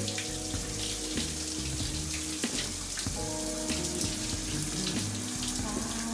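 Shower spray running steadily, heard as an even hiss, under soft background music of held notes.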